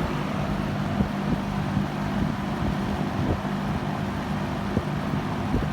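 A 1978 JCPenney (Lakewood model 9705) 20-inch box fan with a four-rivet metal blade set, running on medium speed. It makes a steady rush of moving air over a low, even motor hum.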